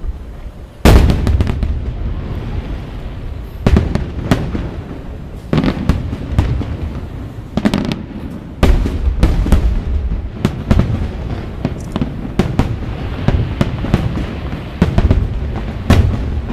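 Aerial fireworks bursting: a heavy boom about a second in, then a steady run of sharp bangs and crackles over a rolling low rumble.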